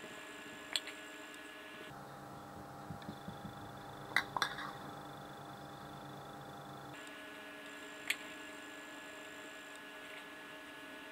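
Steady low electrical hum of several held tones, with a few light taps and soft rustles from a hand patting tapioca starch onto a raw chicken fillet on a paper-covered board: one tap about a second in, a small cluster around four seconds in, and one more near eight seconds.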